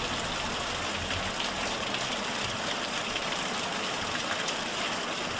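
Machete chopping through strips of T-shirt cloth on a wooden block, giving a few soft knocks over a steady rushing noise.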